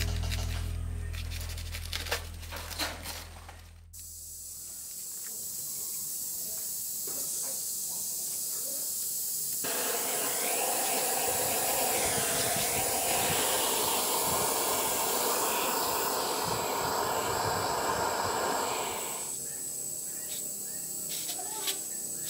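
Guitar music fading out over the first few seconds, then a steady hiss that grows louder and fuller for about ten seconds in the middle before dropping back, with a few light clicks near the end.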